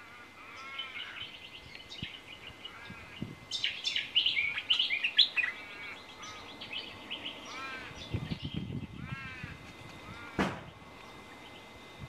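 Several wild birds calling, recorded in a backyard in Western Australia: repeated short arching calls, with a loud burst of rapid, busy chattering about four seconds in. A single sharp click sounds near the end.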